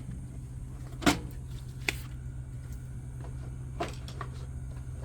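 A few light knocks and clicks from handling the air filter and its housing, the loudest about a second in, over a steady low hum.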